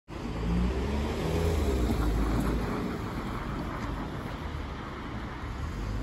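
A car driving past across a railway level crossing, its engine and tyres loudest over the first couple of seconds and then easing into steady street traffic noise.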